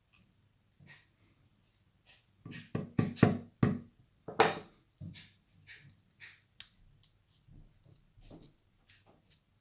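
Lock cylinder being knocked and tapped against a hard surface to dump out its pins and springs. A quick run of sharp knocks comes a few seconds in, followed by lighter scattered clicks.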